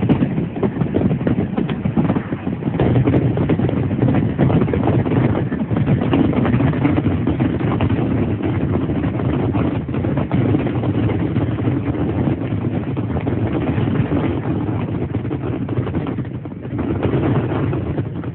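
Fireworks going off in a dense barrage: many shells bursting in quick succession, merging into a continuous rumble of booms and crackle. The barrage eases briefly near the end, then surges once more.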